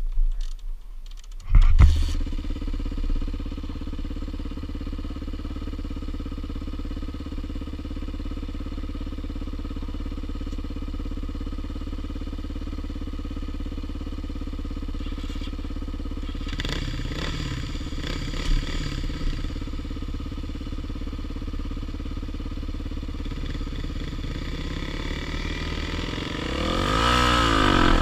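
Dirt bike engine starting about two seconds in, then idling steadily. A short stretch of extra engine sound comes partway through, and near the end the revs rise and fall as the bike pulls away.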